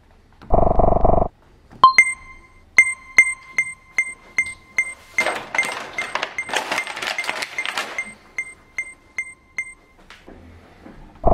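A short electronic buzz from the light-up toy pad. Then a long run of evenly spaced, high electronic pings, about two and a half a second, for some eight seconds. In the middle of the run, the clear plastic blister tray of toy figures crackles as it is handled.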